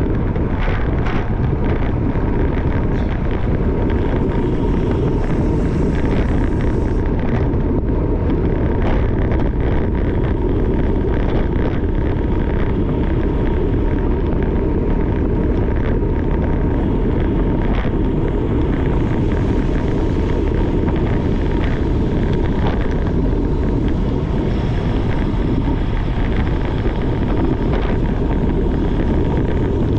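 Loud, steady wind buffeting the microphone, a continuous low rumble with a few faint clicks and knocks in it.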